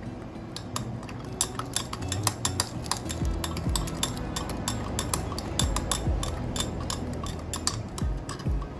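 A wooden chopstick stirring liquid in a glass jar, tapping and clinking against the glass in a rapid, irregular stream of small clicks.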